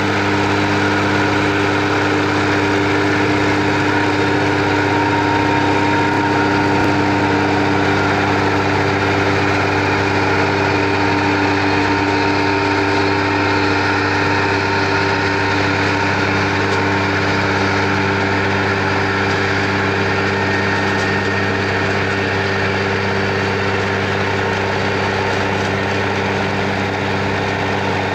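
Schlüter tractor's diesel engine running at a steady, unchanging speed.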